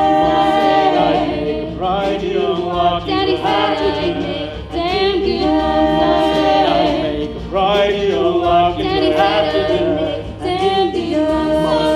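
A young man singing a song from a stage musical, drawing out long notes with a wavering vibrato over musical accompaniment.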